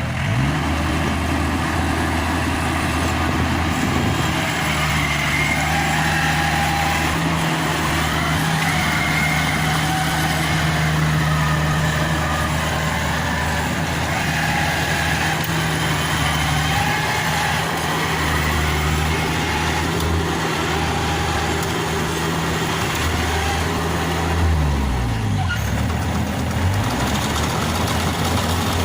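Yanmar AW70V combine harvester's diesel engine running steadily at working speed. Its pitch rises just after the start, and about 25 seconds in it dips and climbs back.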